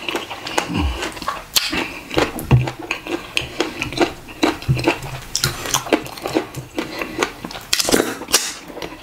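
Close-up eating sounds of fufu and ogbono soup eaten by hand: repeated wet lip smacks and chewing, with fingers squishing in the soup on the plate.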